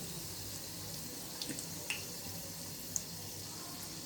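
Hot oil sizzling in a kadai during deep-frying: a steady hiss with a few small pops about one and a half, two and three seconds in.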